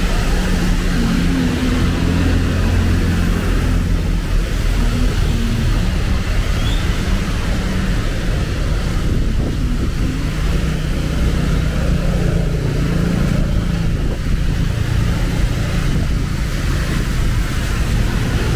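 Steady road traffic on wet roads: a low hum of car and motorcycle engines, with the hiss of tyres on wet asphalt.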